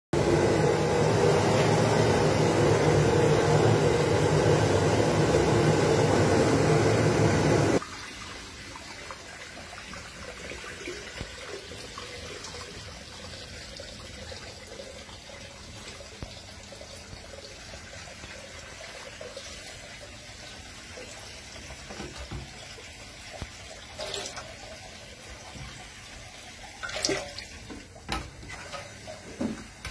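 Water boiling hard in a large cooking pot, a loud steady bubbling that cuts off abruptly about eight seconds in. Then only faint background with a few light knocks near the end.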